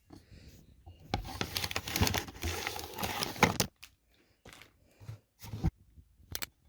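Packaging crinkling and rustling as it is handled and pulled open, dense for a couple of seconds, then a few scattered clicks and knocks of handling.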